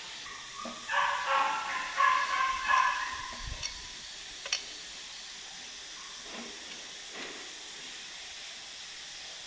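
A run of short, high, squeaky vocal calls from a young voice, pitch bending up and down, lasting about two and a half seconds, followed by a single sharp click and then only a steady faint hiss.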